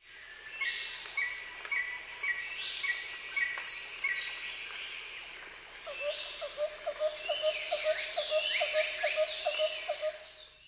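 A chorus of birds singing, with many overlapping chirps, falling whistled sweeps and repeated short notes. From about six seconds in a lower note repeats about four times a second, and the whole chorus fades out quickly at the end.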